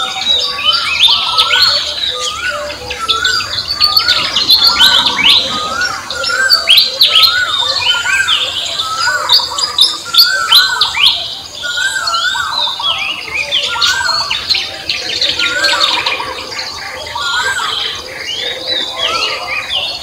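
Several birds chirping and singing together: many quick high chirps and sweeps, over a lower short rising phrase that one bird repeats over and over.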